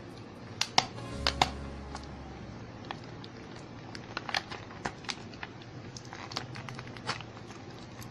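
Irregular light clicks, ticks and small knocks of a clip microphone's plastic packaging being handled and opened by hand, with a brief low rumble about a second in.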